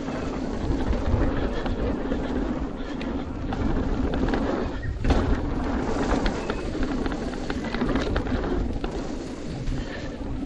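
Mountain bike rolling fast down a dirt trail: a steady rush of knobby tyres on dirt and passing air, with frequent small clicks and rattles from the bike over bumps.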